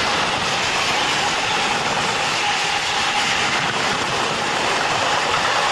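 Freight train's tarpaulin-covered wagons rolling past close by at speed: a steady, loud rumble of wheels on rail.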